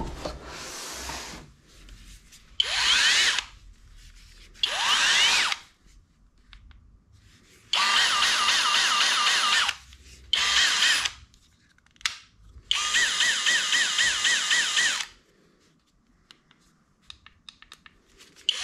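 HOTO 12V brushless cordless drill/driver run in a series of short trigger bursts, the motor spinning up with a rising whine; in the two longest bursts the whine wavers quickly up and down. A few faint clicks near the end.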